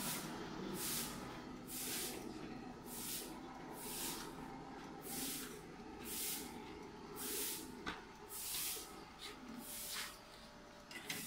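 DELTA stainless-steel wheelchair platform stairlift travelling along its stair rail: a steady low motor hum with a hiss that swells and fades about once a second.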